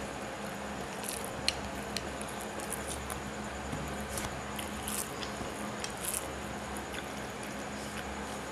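Fingers kneading and mixing boiled rice with mashed boiled vegetables on a plate, giving soft wet squishes and small scattered clicks. A steady low hum runs underneath.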